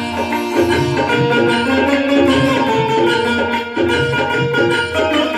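Instrumental bhajan interlude on an electronic keyboard, a Roland XPS-10: a tabla-style rhythm loop under a plucked, banjo-like melody in short held notes.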